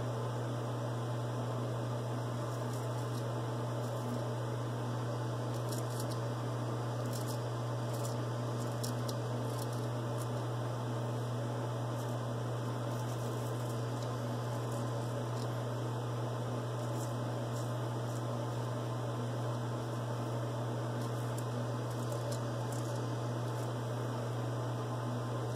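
Double-edge safety razor scraping through stubble on the upper lip in short, faint crackly strokes, over a steady low hum that is the loudest sound.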